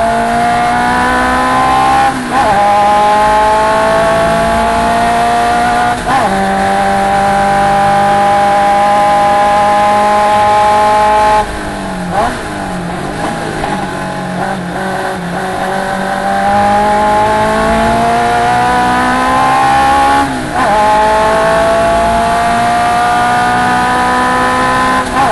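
Galloway Sports 1300 clubman race car's engine under hard acceleration, its pitch climbing through each gear with quick upshifts about 2 and 6 seconds in. Midway it lifts off and the pitch falls, with a few short blips as it slows and shifts down for a corner. It then pulls hard again through two more upshifts near the end.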